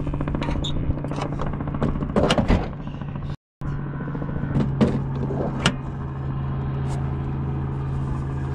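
Clicks and rattles of a Land Rover Defender's hood latch being worked by hand under the hood edge, with a louder clatter of clicks about two seconds in, over a steady low hum. The sound cuts out completely for a moment about three and a half seconds in.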